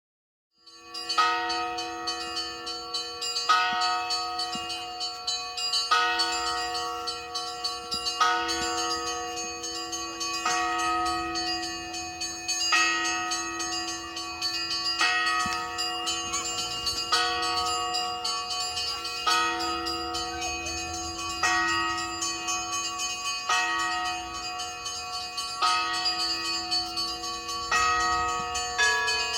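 Russian Orthodox cathedral bells ringing, a fresh stroke about every two seconds over the ringing of several bells of different pitches left sounding together. The ringing starts about a second in.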